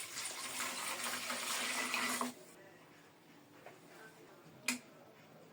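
Water running and splashing for about two seconds, then stopping suddenly; a single light click follows near the end.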